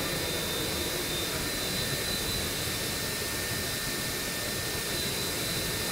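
Steady, even mechanical noise, like a fan running, with a thin high-pitched whine over it.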